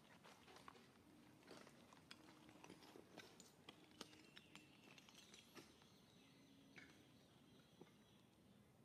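Near silence, with faint scattered clicks and rustles of a long-tailed macaque picking at and chewing food.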